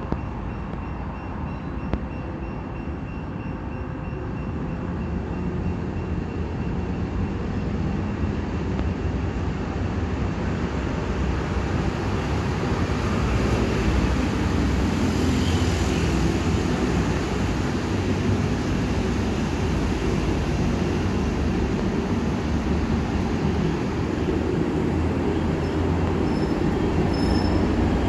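Kaohsiung light rail tram approaching along the grassed track and pulling into the station, a low rumble that grows steadily louder as it nears.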